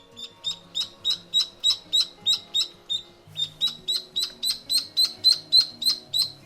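Background music with sustained low notes, over a short high chirp repeated about three times a second, pausing briefly near the middle.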